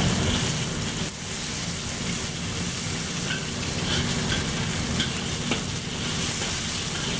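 Sliced chicken sizzling in hot oil in a wok while a metal spatula stirs it, with the occasional short scrape or tap of the spatula against the wok.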